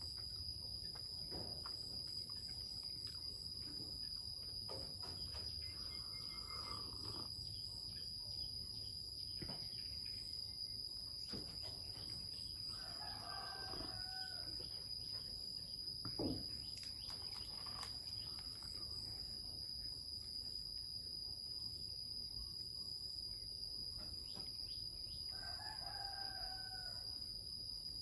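A rooster crows three times, each crow lasting a second or more, over a steady high-pitched insect trill. There is a single knock about halfway through.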